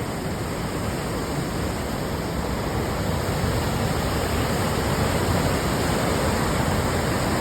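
Steady rush of water from a river or waterfall below, growing slightly louder.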